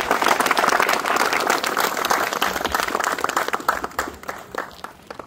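Audience applauding: a burst of many hands clapping that sets in at once, then thins out and fades away over the last second or so.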